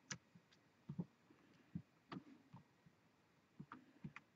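Faint, scattered computer mouse clicks, several short soft clicks a fraction of a second to a second apart, over a quiet room.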